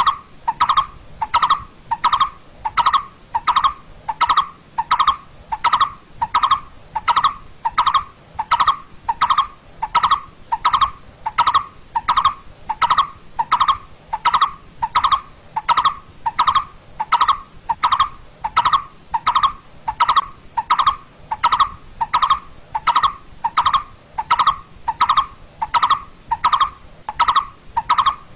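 Coppersmith barbet calling: a steady, monotonous run of short, hollow 'tuk' notes on one pitch, about one and a half a second.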